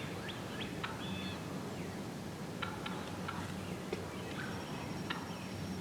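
Wild turkeys calling: a scatter of short, sharp clucks, with a brief higher-pitched call about a second in.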